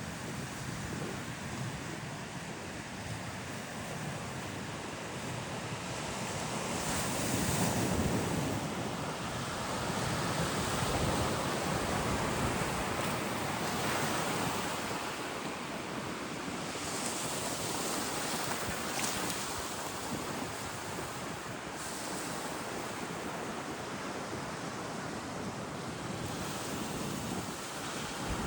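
Sea surf on a beach: waves breaking and washing in, swelling louder every few seconds.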